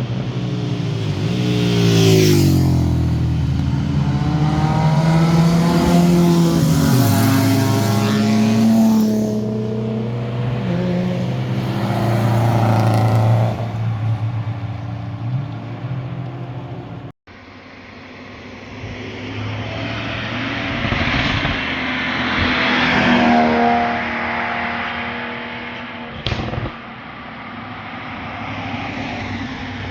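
Sports cars driving past one after another, engines revving up and down through the gears with exhaust note rising and falling. About 17 s in the sound cuts abruptly and a second car's engine swells up as it approaches, peaks, and fades away, with a short sharp click about 26 s in.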